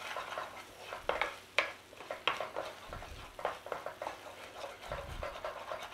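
Wooden spoon stirring thick roasted red pepper purée in a non-stick frying pan, scraping and knocking against the pan in irregular strokes.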